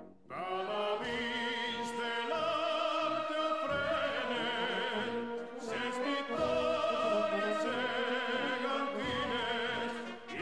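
Operatic singing with orchestral accompaniment, the voice holding long notes with a wide vibrato. The music comes in just after a short quiet gap at the start.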